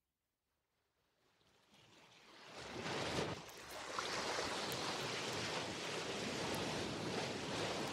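Sea waves washing in: silence, then a rush of surf fades in about two seconds in, surges once about a second later, and settles into a steady wash that fades out near the end.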